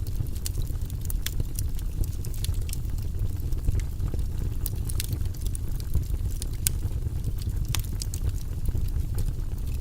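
Fire in a fireplace crackling, with frequent irregular sharp pops and snaps over a steady low rumble of the flames.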